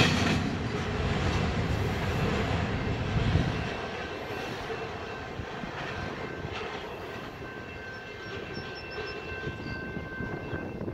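Wheel-and-rail rumble of the last cars of a Union Pacific double-stack intermodal train rolling past and away. It fades over the first few seconds to a low, distant rumble.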